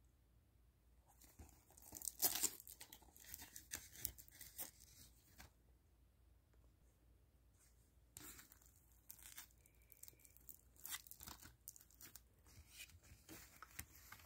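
Shrink-wrapped Blu-ray cases being handled: plastic wrap crinkling and rustling against the cases in two spells, the first starting about a second in and the second about eight seconds in.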